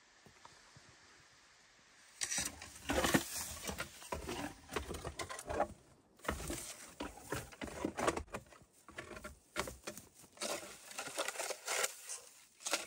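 Old moose shoulder blades raked and scraped through brush and spruce branches in irregular crunching strokes, imitating a bull moose thrashing brush with its antlers as a call. It starts about two seconds in and runs in uneven bursts.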